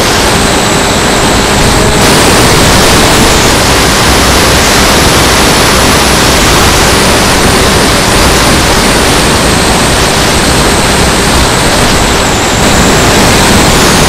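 Loud, steady rush of wind over the onboard camera of a Funjet RC foam jet in fast, low flight, with a faint steady whine underneath from its electric pusher motor.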